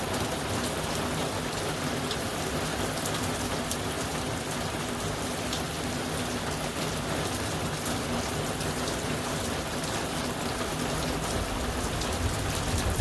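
Heavy rain pouring steadily, a constant hiss with scattered single drops striking close by.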